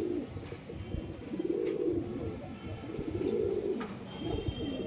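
Domestic pigeons cooing: about four low, rolling coos, each under a second long, a second or so apart.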